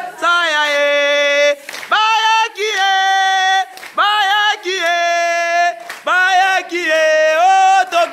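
Voices singing a traditional Congolese dance song in a string of about six phrases of long held notes, with short breaks between them.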